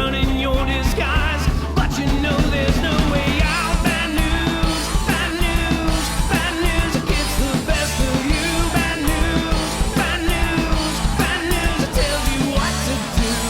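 Rock song with drums, guitar and a singing voice.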